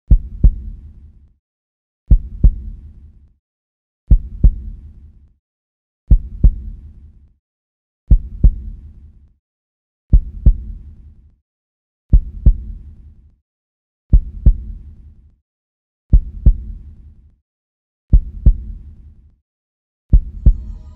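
Slow, heavy double thumps in a heartbeat rhythm, one pair about every two seconds, with silence between.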